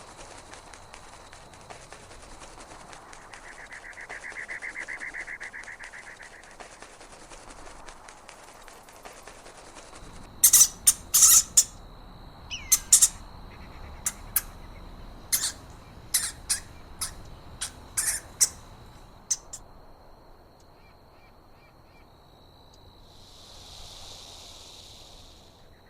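A bird giving a string of short, loud, shrill calls in irregular bursts over about nine seconds, after a quieter stretch with a soft buzz.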